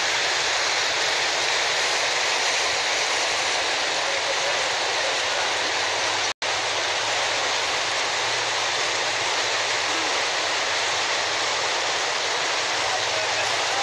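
Muddy floodwater from a collapsed canal rushing down a street: a steady, loud rush of turbulent water. It cuts out for an instant about six seconds in.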